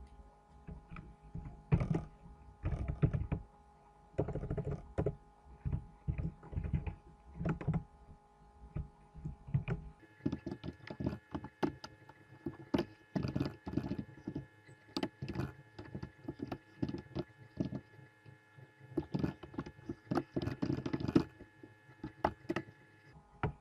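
Typing on a computer keyboard: irregular runs of key clicks broken by short pauses, over a steady faint electrical hum.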